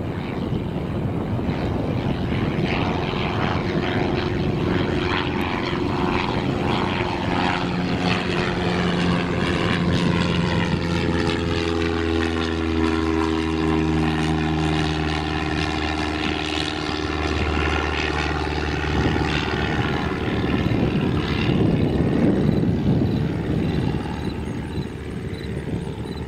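A Piper PA-28 Cherokee Archer's four-cylinder Lycoming engine and propeller at takeoff power as the plane climbs out past and away. The drone drops in pitch as it goes by and eases off slightly near the end.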